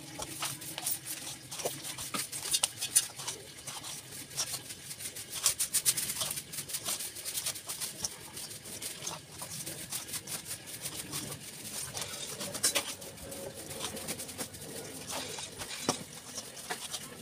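Wet, sticky crackling and squelching from bare hands rubbing a chilli, flour and turmeric masala coating onto a whole pomfret in a steel bowl. It comes in irregular spells of quick clicks, thickest a couple of seconds in and again near the end.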